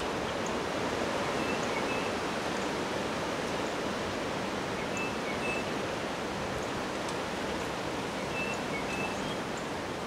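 Strong wind of 45+ mph rushing steadily through bare tree branches, with a few short high chirps scattered over it.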